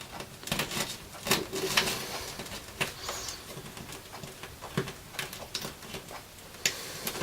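Scattered light clicks, taps and small scrapes from handling model railway track parts, as a loose plastic sleeper is worked in under the rails.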